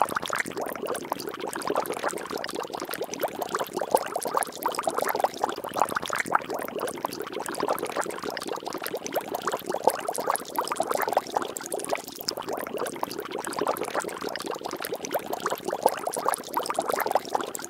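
Water splashing and bubbling: a steady, dense stream of tiny pops and splashes.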